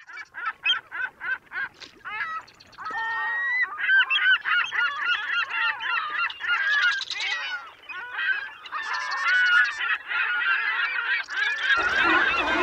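A flock of geese honking: a few evenly spaced honks at first, then many birds calling over one another in a dense, continuous clamour.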